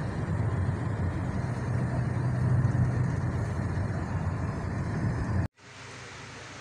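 Steady engine and road noise inside a moving passenger van's cabin. It cuts off abruptly about five and a half seconds in, giving way to a much quieter steady hiss.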